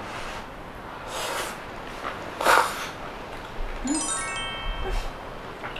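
Two short breathy puffs as hot noodles are blown on to cool them, then, about four seconds in, a brief chiming sound effect of tones stepping upward.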